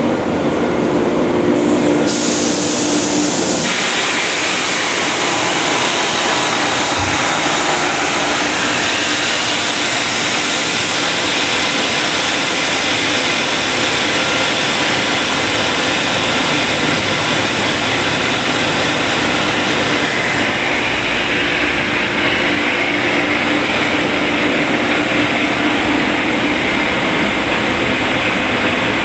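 Steady mechanical noise of an oxygen plant's Atlas Copco air compressor running, a constant rush with a low hum, whose sound fills out and brightens a few seconds in.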